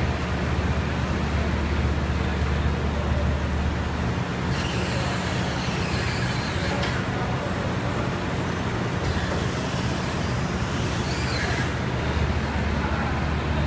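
Hydraulic drive of a moving-floor (walking floor) trailer bed running with a steady hum as its aluminium slats are cycled. The lowest note of the hum drops out about four seconds in and returns near the end.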